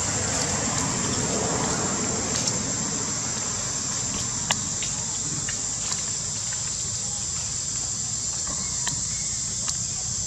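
Insects droning steadily at a high pitch over a low outdoor hum, with scattered sharp clicks and crackles of dry leaves on the ground.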